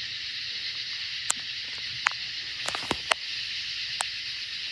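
Steady high-pitched hiss of a night insect chorus, with about six sharp pops from distant fireworks scattered through it.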